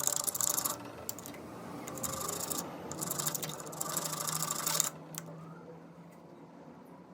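Electric drill running with a jigsaw blade in its chuck, the blade rasping into PVC pipe in three spells of cutting over the steady hum of the drill motor. The cutting and the hum stop about five seconds in.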